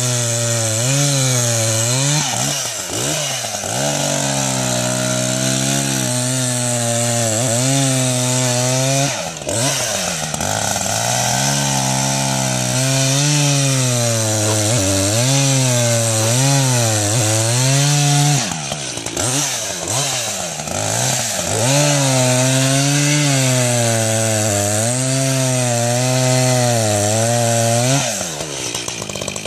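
Two-stroke chainsaw cutting through lake ice at high revs, its pitch sagging and recovering again and again as the bar loads up in the cut. The revs fall away near the end.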